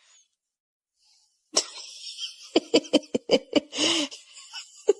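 A run of quick, breathy voice sounds, a few of them pitched, starting suddenly after about a second and a half of silence.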